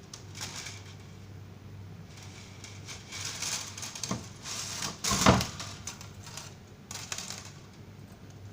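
Hand-work handling noises: irregular scraping and rustling with light clicks, and one sharper knock a little past halfway.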